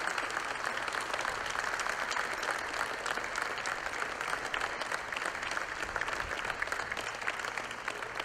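A group of people applauding: steady clapping from many hands, easing off slightly near the end.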